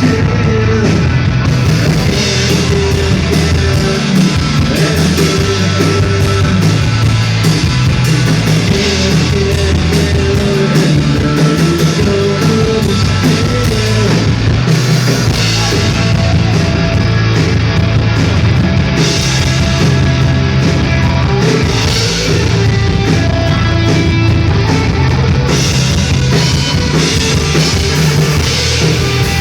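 A band playing loud rock music live, with guitar and a drum kit pounding steadily throughout.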